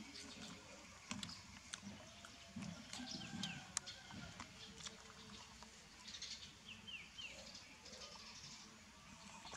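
Puppies suckling at their mother dog: faint wet sucking and smacking clicks with small low grunts. A bird chirps briefly a few times.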